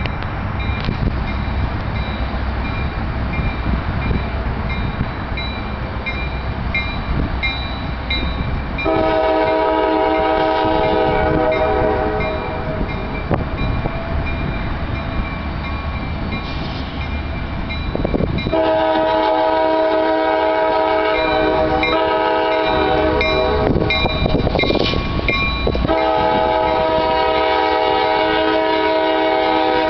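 Diesel freight locomotive's air horn sounding three long blasts in a steady chord as the train approaches a grade crossing, the last still going at the end, over a low rumble before the first blast. A grade-crossing bell rings steadily throughout.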